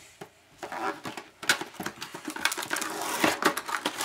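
Cardboard trading-card box being opened and handled: a dense run of crackling and rustling with sharp clicks, starting about half a second in.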